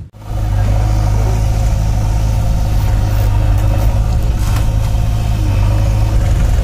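Mahindra tractor's diesel engine idling steadily with a low, even drone.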